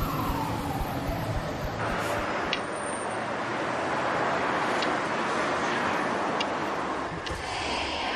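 Busy city street traffic: a steady wash of cars passing, with a few brief high ticks.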